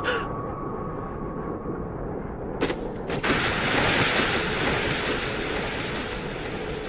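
Anime action sound effects: a low rumble, then two sharp hits about half a second apart, followed by a loud rushing blast that slowly fades.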